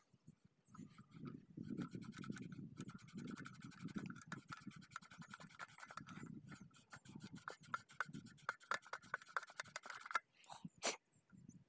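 Rapid scratchy rubbing as the copper slip rings of a centre-pivot irrigation collector-ring head are scrubbed clean by hand, with one sharp click near the end.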